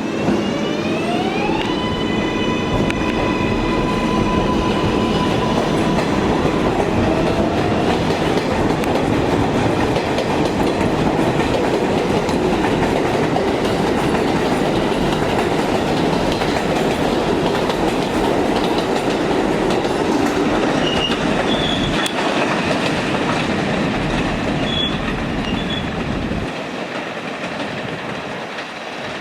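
Kawasaki R188 subway train pulling out, its traction motors whining up in pitch over the first two seconds, then a long steady rumble and clatter of wheels on the rails, with a few brief high squeals, that drops away near the end.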